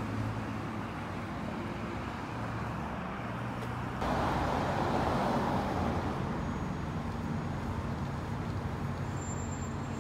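City street traffic noise: a steady rumble of passing vehicles that grows louder about four seconds in.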